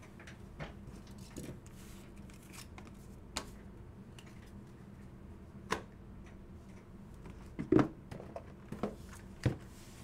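Sealed trading-card boxes being handled and set down on a table: scattered soft knocks and clicks with faint rustling, the loudest ones in the last two and a half seconds.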